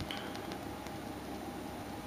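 A few faint clicks of a Kindle 4's five-way controller being pressed, over a steady background hiss.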